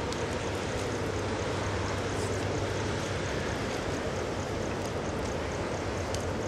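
Steady low engine rumble with a constant hum, under a faint, regular high-pitched chirping about three times a second.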